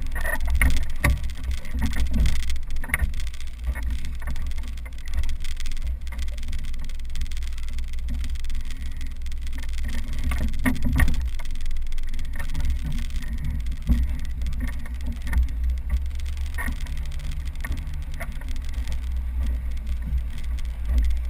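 Wind buffeting the microphone in a low, uneven rumble, with water slapping and knocking against the hull of an inflatable boat.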